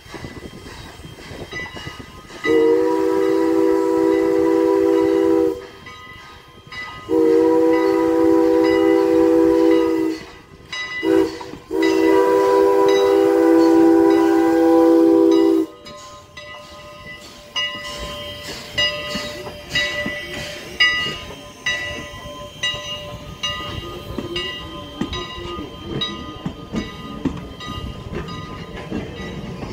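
Steam whistle of Strasburg Rail Road No. 89, a 2-6-0 steam locomotive, sounding several notes at once: two long blasts, a brief toot, then a third long blast, the long-long-short-long pattern for a grade crossing. Then the wooden passenger coaches roll past with a steady rumble and regular clicking of wheels over rail joints.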